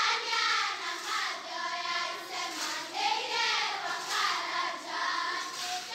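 Several voices singing together, children's voices among them, overlapping with one another.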